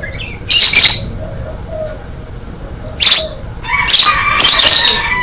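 Loud, harsh bird squawks in three bursts: about half a second in, at three seconds, and a longer one near the end that trails into a falling call. Faint low cooing from a spotted dove runs underneath.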